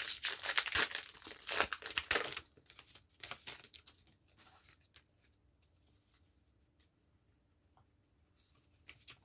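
A foil Pokémon TCG booster pack wrapper being torn open and crinkled for the first two seconds or so, then a few light rustles and near quiet as the cards are taken out.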